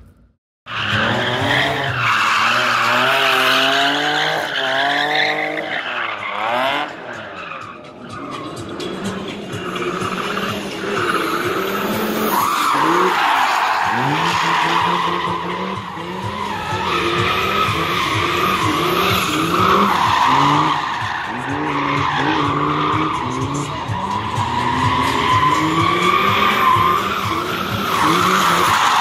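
A drifting car's engine revving up and down again and again while its tyres squeal continuously through the slides. The sound cuts in after a brief dropout at the very start.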